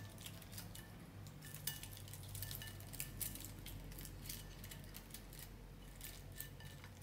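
Dried seaweed being pressed into a glass bowl of water: scattered small clicks and crackles as the stiff fronds and fingertips tap against the glass, over a low steady hum.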